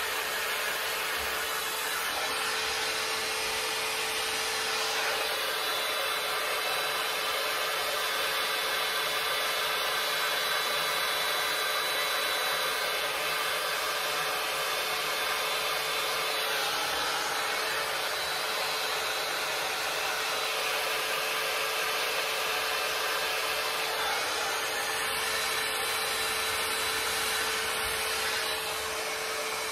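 BaByliss hot air brush (dry-and-style air styler) running steadily: a constant rush of blown air with a steady motor hum.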